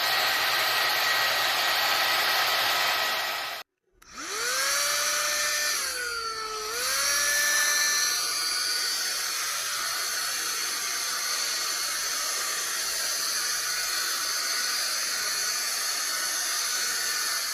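Electric rotating hot-air brush running, with a motor whine over the rush of its fan. It stops for a moment about four seconds in, then starts again with the whine rising in pitch, dips briefly, and runs steadily.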